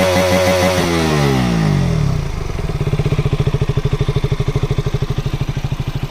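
KTM RC 200's single-cylinder engine revved high in neutral, held briefly, then the throttle is released: the revs fall away over about a second and settle into a steady, evenly pulsing idle.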